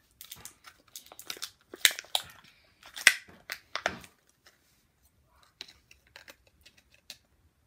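Thin plastic toy wrapping being crinkled and torn open by hand: a run of sharp crackles, loudest about two and three seconds in, thinning to a few faint ticks in the second half.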